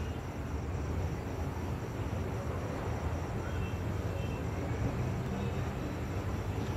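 Steady low rumble of night-time outdoor ambience, with a faint, high, evenly pulsing tone about twice a second.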